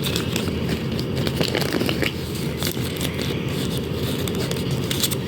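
Blind-bag packaging being handled, with a steady crinkling, rustling and scraping and many small crackles throughout.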